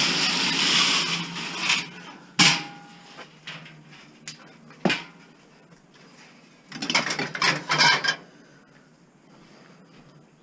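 Scrap metal being handled and dropped: clattering and scraping at the start and again about seven seconds in, with a sharp metal clank about two seconds in that rings briefly, and a single knock around five seconds.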